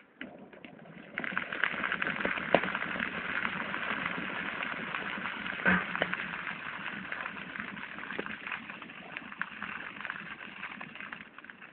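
Heap of cut brush and branches burning, with a dense crackle and many sharp pops that start suddenly about a second in. A louder snap comes about halfway through, and the crackle eases off toward the end.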